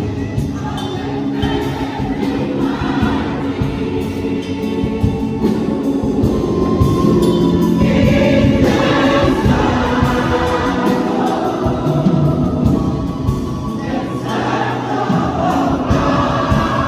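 Choir singing in harmony with instrumental accompaniment.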